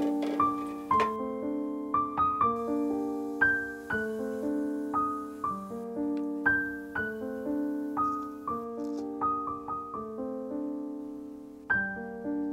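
Background piano music: single notes struck at an even pace, about two a second, each ringing and fading into the next.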